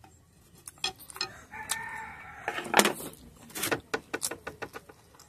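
A rooster crows once, a held call about a second long, over a run of sharp clicks and wet smacks from eating noodles close to the microphone.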